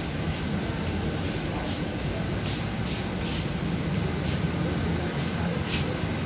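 Steady low hum and general background din of a busy supermarket, with a few soft clicks scattered through it.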